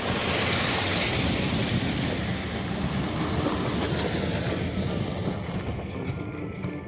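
Loaded logging truck's engine running hard under load, a dense low rumble with a loud rushing noise over it that eases off over the last couple of seconds.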